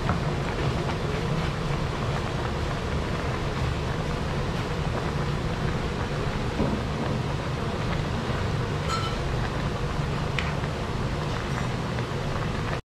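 A large aluminium pot of tilapia and bitter melon leaf soup boiling hard on the stove: a steady rumbling hiss. A couple of faint clinks from the ladle against the pot come in the second half.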